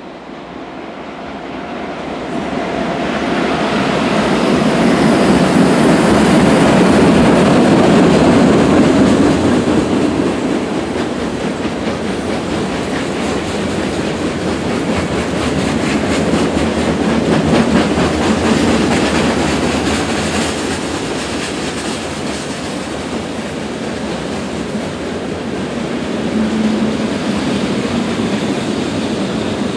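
Freight train crossing a concrete rail bridge: the diesel locomotives come up and pass, loudest about six to nine seconds in, then the freight cars roll over the bridge with a steady clickety-clack of wheels on the rails. A brief thin, high wheel squeal comes in about twelve seconds in.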